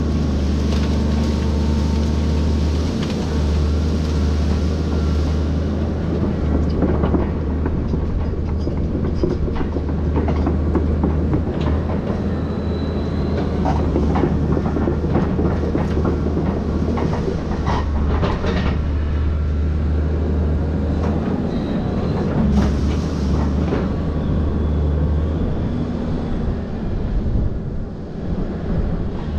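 Volvo excavator running steadily, with a constant low engine hum and frequent metallic clanks and knocks from its tracks and bucket or rake working the trees.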